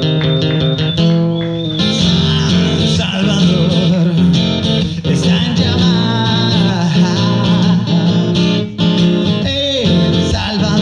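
Live song: a man singing over a strummed acoustic guitar.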